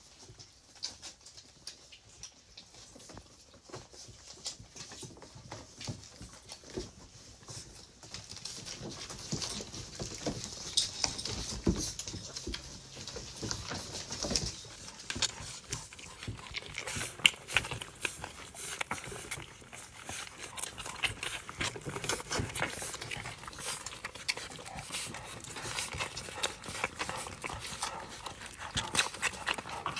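Six-week-old Labrador retriever puppies nursing from their mother: irregular soft taps, patters and suckling noises from paws scrabbling on the wooden floor and mouths at the teats. The sounds are sparse for the first eight seconds and busier after that.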